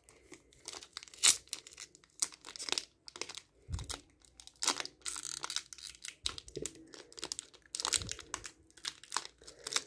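Foil Yu-Gi-Oh booster pack wrapper crinkling and tearing as it is pulled open by hand: irregular crackles with louder rips scattered through.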